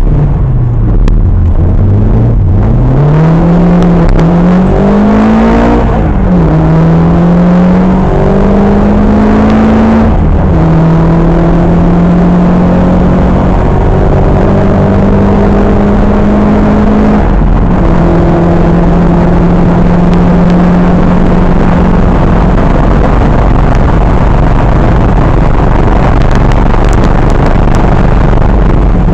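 Historic rally car's engine heard from inside the car: it slows for a junction, then accelerates hard with several upshifts in quick succession, then holds high, steady revs down a straight, lifting briefly once about two-thirds through, with road and wind noise underneath.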